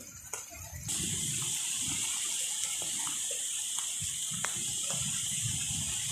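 Heavy rain falling in a steady hiss that suddenly grows much louder about a second in, with gusting wind buffeting the microphone and a few sharp drop ticks.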